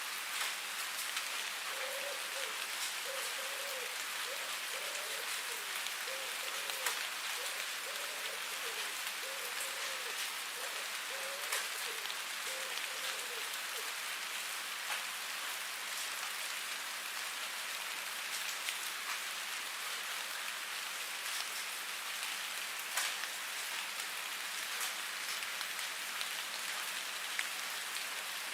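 Steady rain falling on a surface, an even hiss with scattered sharper drop taps. In the first half a faint low call repeats roughly every second and a half.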